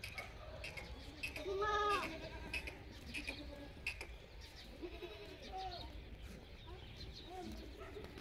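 Totapuri goats in a moving herd bleating: one loud, wavering bleat about a second and a half in, then several fainter, shorter bleats later on.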